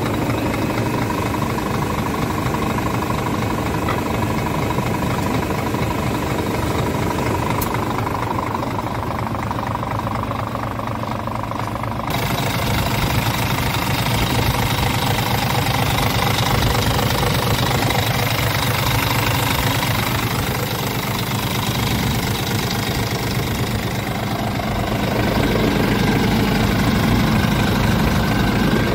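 Scania R truck's diesel engine idling steadily, heard close up at the engine. Its sound changes abruptly about twelve seconds in and grows a little louder near the end.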